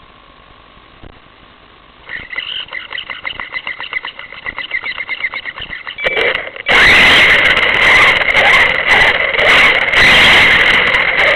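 Car engine being cranked by its starter, a fast rhythmic whirring with a squeal, for about four seconds; it catches about seven seconds in and runs loudly as the car moves off.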